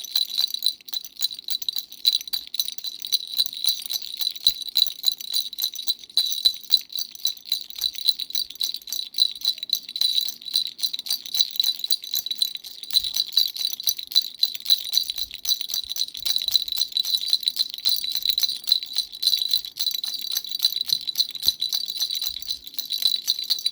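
Dumbbell-shaped baby rattle shaken without pause, giving rapid clicking over a steady high jingling ring.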